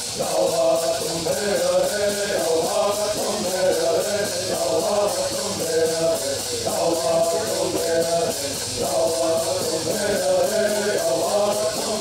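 A group of men singing a Southern California bird song in unison, with gourd rattles shaken in a fast, steady beat.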